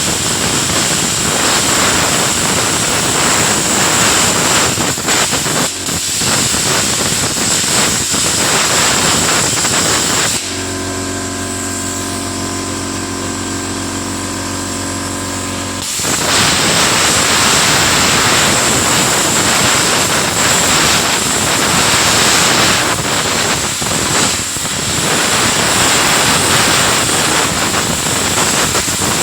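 CUT 125 IGBT inverter air plasma cutter cutting, a loud steady hiss of the arc and air jet with a high whine over it. About ten seconds in the cut stops for some five seconds, leaving only the machine's steady hum, then the hiss starts again.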